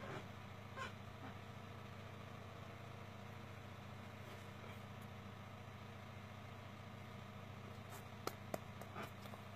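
Steady low background hum, with two sharp taps about eight seconds in as the signer's hands strike together.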